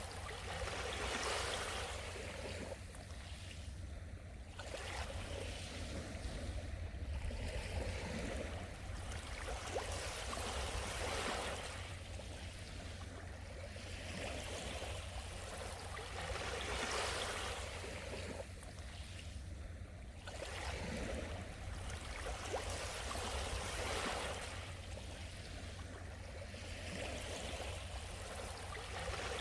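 Small sea waves washing onto the shore, a rushing hiss that swells and ebbs every three to four seconds over a steady low rumble.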